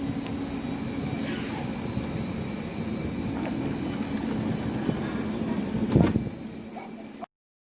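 Electric commuter train at the platform: a steady hum and whine of its machinery over rumbling noise, with a sharp knock about six seconds in, after which the sound cuts off suddenly.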